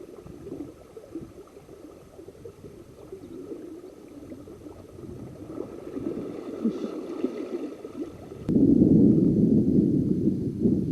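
River water flowing and gurgling, becoming suddenly much louder about eight and a half seconds in.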